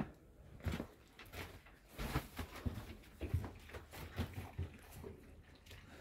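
A litter of puppies eating porridge thinned with water from a shared bowl: a run of soft, irregular lapping and smacking sounds.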